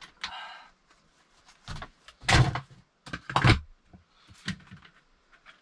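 Heavy wooden thuds and knocks as pieces of wood are handled and dropped, with a short scrape just after the start. Two loud thuds come in the middle, with lighter knocks before and after.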